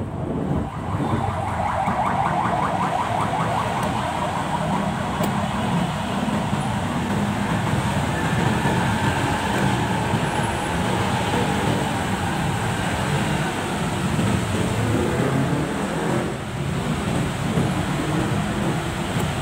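Vehicle engine running with road and traffic noise, heard from a moving vehicle. The engine note climbs gently over the first several seconds.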